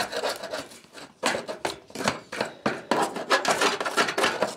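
Thin metal tool scraping and scratching old foam filler and adhesive out of the joint between corrugated metal roof sheets, in short, irregular strokes.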